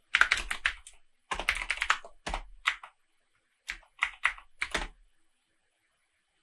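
Computer keyboard typing in several quick runs of keystrokes, stopping about five seconds in.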